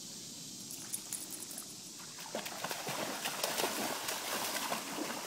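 Creek water running steadily, then, about two seconds in, a Siberian husky puppy and a German Shepherd plunging and tussling through the shallow water, with splashing that grows louder.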